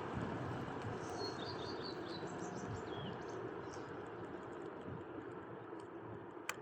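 Segway GT3 Pro electric scooter running at steady speed with a continuous low rattling noise that the owner takes for something rubbing inside the rear hub motor. A few high bird chirps come briefly about a second in.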